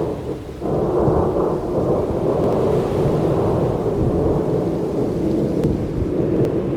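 Thunder rumbling, with rain falling. A loud roll of thunder starts suddenly just under a second in and keeps going.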